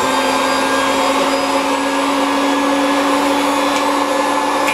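Hamilton Beach Model 40 triple milkshake mixer, one spindle motor running at high speed: a steady motor whine holding one pitch.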